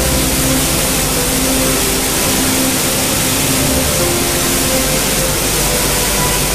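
Steady, loud, even noise of a running maize flour mill's machinery (roller mills, fans and the flour filling line), with a few faint held tones that come and go.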